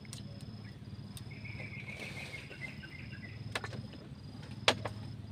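High-pitched insect trill with short regular gaps, over a low steady hum; a brief twittering chirp about a second in, and a sharp click near the end, the loudest sound.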